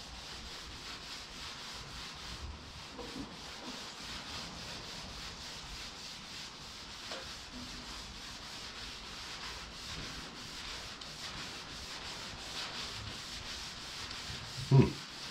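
SOS steel-wool soap pad scrubbing paint off a car hood: a steady scratchy rubbing as the stripper-soaked top coat of paint comes away from the original paint beneath. A short thump sounds near the end.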